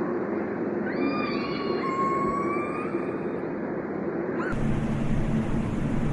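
Killer whale calls over steady underwater background noise: one drawn-out call with several harmonics from about a second in for roughly two seconds, and a brief rising call a little after four seconds. Then the background changes to a louder, noisier recording with a steady low hum.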